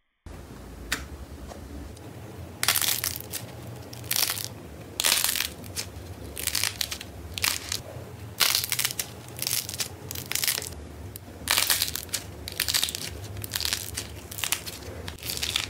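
Soft modelling clay squeezed and kneaded between fingers, giving irregular crunchy crackles about once a second over a steady low hum.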